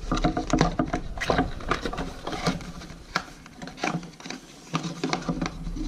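Hands handling a camera's retail packaging: irregular clicks, taps and light rubbing of plastic and cardboard parts.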